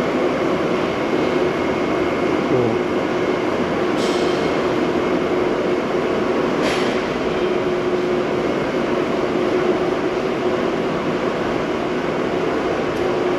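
Steady ventilation hum and rushing noise in a large hall, with a few sharp clicks.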